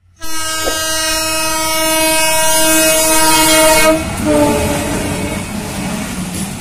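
Train horn sounding one long multi-tone blast over the rumble of a moving train. About four seconds in the horn's pitch drops, and it fades toward the end.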